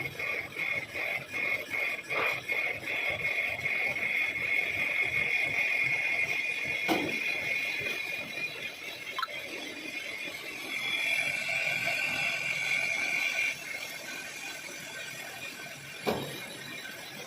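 Lathe threading tool cutting a coarse 3 TPI thread in a cast iron nut, giving a high squeal that pulses about three times a second at first, then runs steadier and shifts higher for a few seconds. A few sharp clinks come through it.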